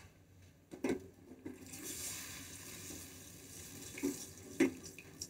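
Thick ketchup-and-oyster-sauce barbecue sauce sizzling in a small steel saucepan as it heats, stirred with a silicone spatula. The sizzle starts about a second and a half in, with a few light knocks of the spatula against the pan.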